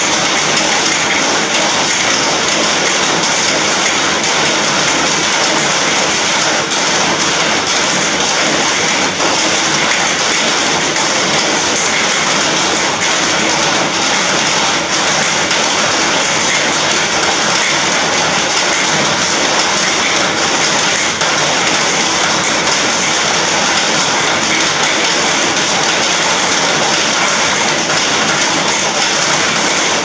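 Steady rain falling on an iron roof, a loud, even hiss with no pauses.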